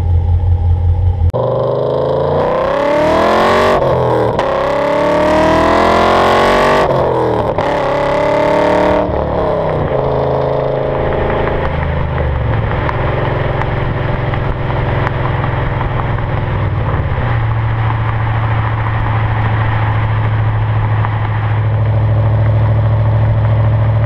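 2011 Chevrolet Camaro 2SS's 6.2-litre V8 breathing through aftermarket headers and a Borla S-Type cat-back exhaust, heard from beside the tailpipe: about a second of lumpy idle, then the exhaust note rising hard under acceleration with a few upshifts, settling into a steady drone at highway cruise.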